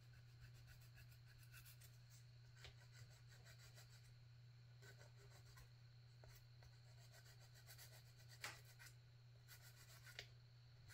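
Near silence over a steady low hum, with faint scraping and a few light clicks from small plastic model parts being worked by hand.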